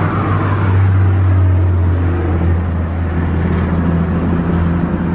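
Helicopter flying overhead, heard but not seen: a loud, steady low drone.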